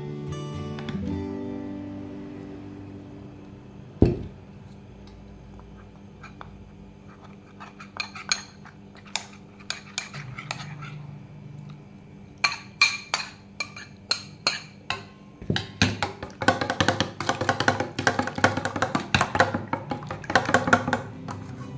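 Metal spoon clinking against a stainless steel bowl while whisking raw eggs, in a rapid run of clinks through the second half, after scattered clinks and one sharp knock earlier. Soft acoustic guitar music plays underneath.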